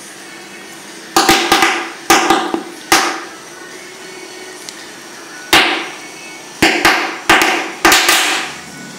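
Oxyhydrogen (HHO) gas bubbles on a water surface being lit with a torch lighter, going off as sharp cracking pops in quick clusters, about a dozen in all, each with a short ringing tail.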